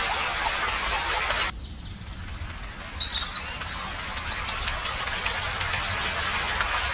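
Steady rain hiss that cuts off abruptly about a second and a half in. A bird then gives a quick string of short, high chirps over a couple of seconds, and the rain hiss comes back near the end.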